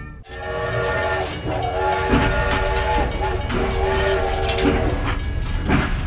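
Toy steam locomotive running on its plastic track, with a steam-whistle sound in three long notes over a steady low running rumble and scattered clicks.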